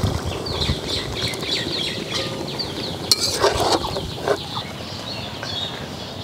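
Water is poured into a large aluminium pot of curry cooking over a wood fire. A metal spoon then stirs and knocks against the pot, with a few clinks about three to four seconds in.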